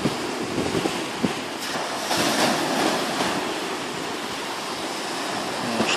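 Steady outdoor rushing noise, swelling a little about two seconds in and easing again.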